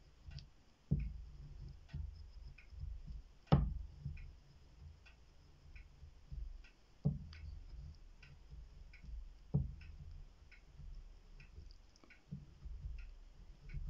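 Wax candle rubbed across paper on a table in low, dry scraping strokes, with a few dull knocks, the loudest about three and a half seconds in. A faint steady ticking, a little more than one tick a second, runs behind it.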